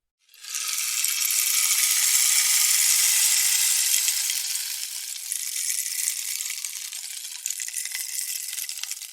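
A rainstick turned over once: a dense cascade of pebbles trickling through it, starting a moment in, swelling over the first few seconds and then slowly thinning out toward the end.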